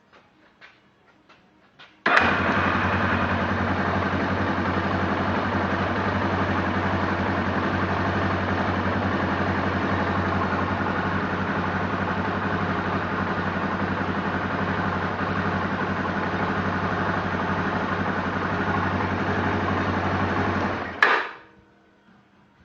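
2008 Yamaha Raptor 350's single-cylinder four-stroke engine: a few faint clicks, then it starts about two seconds in and idles steadily for some twenty seconds. It shuts off near the end with a sharp knock, the loudest sound here, a startup click and shutdown knock that persist on a completely rebuilt engine.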